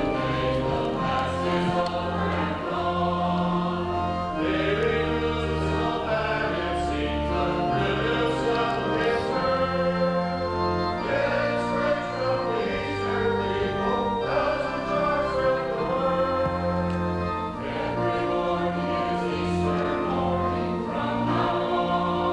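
A choir singing a hymn to accompaniment, with long held chords over low notes that change every second or two.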